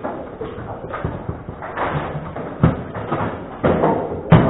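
Table football game in play: a series of sharp, irregular knocks as the ball and the players' figures on the rods strike each other.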